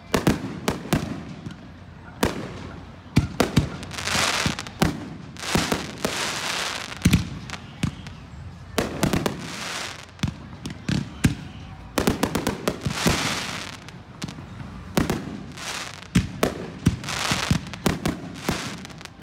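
Aerial fireworks display: shells bursting in quick succession, with sharp bangs several a second at times and longer hissing stretches between them.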